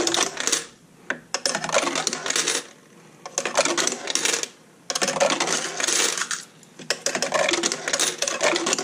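Coins dropped one after another into the CrowBox's coin slots, clinking and rattling down the ramp liners into the machine and striking the coin sensor on the way, in several runs with short pauses between. The coins feed through smoothly without jamming.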